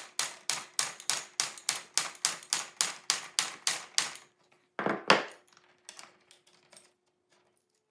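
Rapid light hammer taps, about four a second, driving a brass barb into the end of a hydraulic brake hose held in vise blocks. The tapping stops about four seconds in and is followed by one louder knock about a second later, then a few faint clicks.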